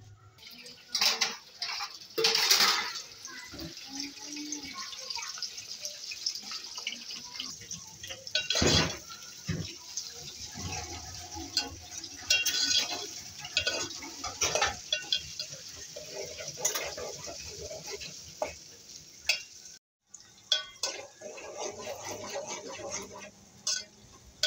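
Sliced onions and cumin seeds frying in hot oil in a steel pot, a steady sizzle with a loud surge about two seconds in. A metal spoon scrapes and knocks against the pot as they are stirred.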